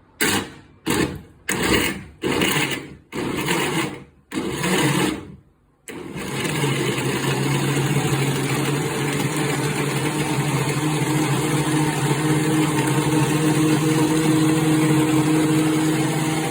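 Arno FaciClic LIQC blender motor pulsed in about six short bursts. From about six seconds in it runs continuously at a steady speed.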